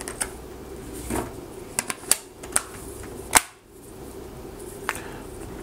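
Battery pressed into a Nokia XL and its plastic back cover clipped back on: a string of small plastic clicks and snaps, the sharpest about three and a half seconds in.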